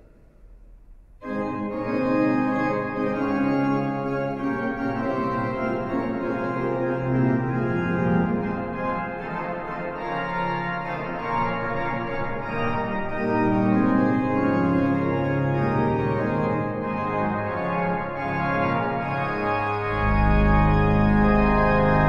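1912 Harrison & Harrison pipe organ playing a full chorded passage on the great principal chorus up to the Harmonics mixture, heard in alternation with the full swell. It starts about a second in, and a deep bass comes in near the end.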